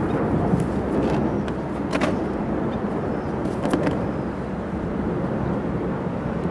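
Steady hum of road traffic, with a few light clicks about two and three and a half seconds in.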